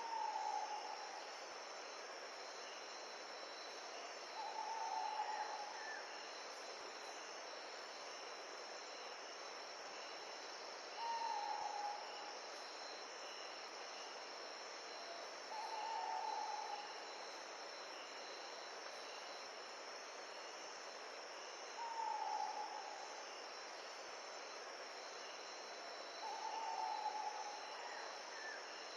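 A steady, high, shrill chorus of crickets or other insects, with a single short, slightly falling hooting call repeated about every five to six seconds, six times in all.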